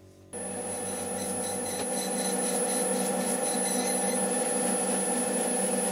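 Wood lathe running at speed, starting abruptly: a steady motor hum with a thin high-pitched whine. A cloth rubs wax onto the spinning sycamore bowl.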